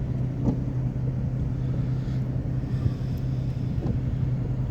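Car running with a steady low hum.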